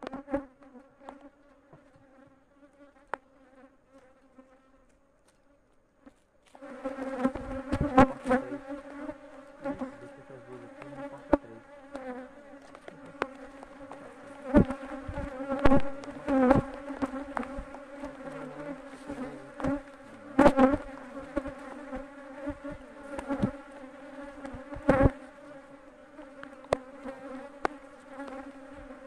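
Honeybees buzzing around an open hive: a steady, droning hum that gets much louder about six seconds in. Scattered knocks and clicks from the hive frame and tools being handled.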